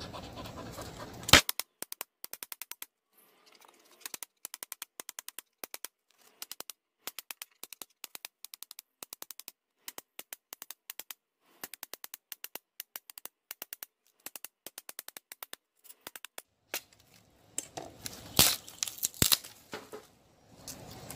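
A machete blade chops into a dry, dead castor-bean stick with one sharp crack about a second in. A long run of rapid, evenly spaced clicks in short clusters follows, with dead silence between them. Near the end come a few loud knocks and cracks.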